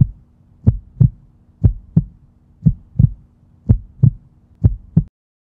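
Heartbeat sound effect: deep paired thumps, lub-dub, repeating about once a second, stopping about five seconds in.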